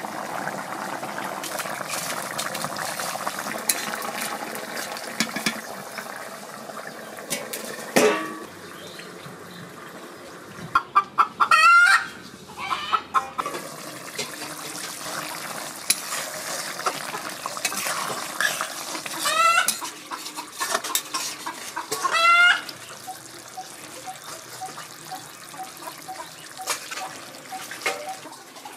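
Domestic chickens calling: several loud crowing calls spread through, with a run of short, evenly spaced clucks near the end. A steady hiss sits under the first several seconds.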